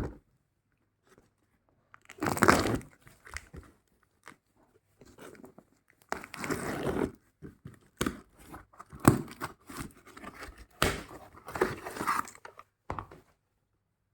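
Packaging being torn open and handled: irregular bursts of tearing and crinkling with scattered sharp clicks and knocks.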